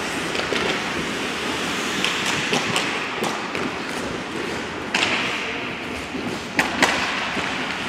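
Ice hockey being played: a steady scraping of skates on the ice, with sharp clacks of sticks and puck every second or so. The loudest hits come about five seconds in and twice in quick succession near seven seconds.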